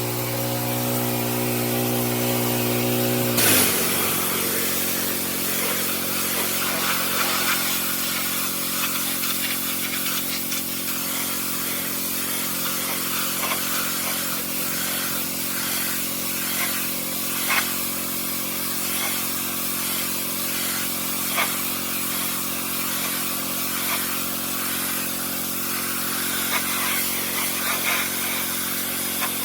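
An old pressure washer running steadily. About three and a half seconds in, the spray starts with a sudden loud hiss and the motor's pitch drops as it takes the load. It then runs steadily under spray, with a few sharp ticks.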